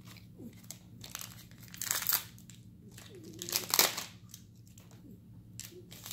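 Foil wrapper of a Weiss Schwarz booster pack crinkling as it is handled and torn open, in two loud bursts: one about two seconds in and a longer, louder one near four seconds.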